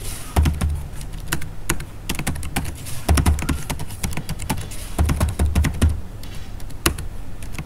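Typing on a computer keyboard: irregular key clicks, some in quick runs, with a few heavier thumps among them.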